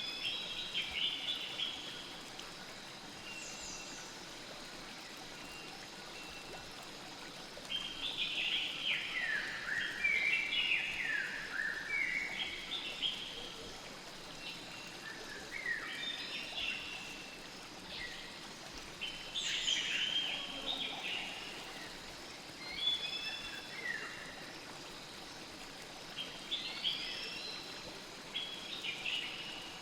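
A songbird singing in short bursts of quick, mostly falling chirps every few seconds, over the steady hiss of a flowing stream.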